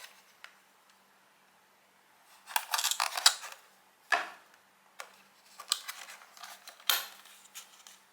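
Product packaging being handled and opened by hand: bursts of crackling rustle, a sharp click about four seconds in, and a few more short rustles and clicks.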